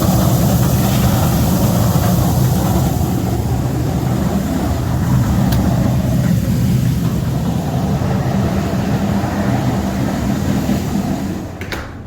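Shelled corn pouring out of a grain truck into a dump pit, a steady rushing hiss over the low hum of idling machinery. Near the end the noise drops away with a couple of sharp clicks.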